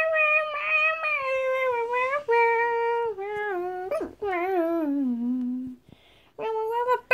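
A young, high voice humming a wordless tune in long held notes that step down in pitch, with a short break about six seconds in.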